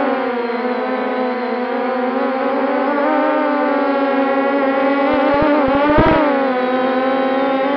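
MJX Bugs 6 brushless quadcopter's motors and propellers humming steadily, heard from the camera mounted on it, the pitch wavering with throttle. A few low thumps come about five seconds in, and the pitch climbs briefly and falls back around six seconds in.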